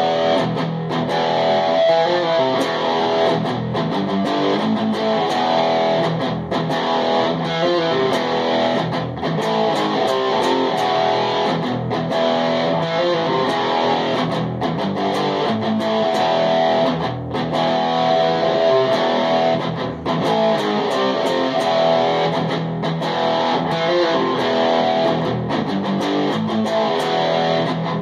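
Electric guitar being played, a continuous run of notes with short breaks every few seconds.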